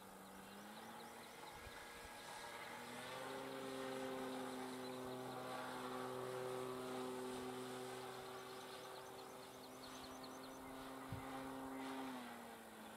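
Electric motor and propeller of a Dynam Waco radio-controlled biplane droning overhead. Its pitch rises over the first few seconds, holds steady, then drops near the end.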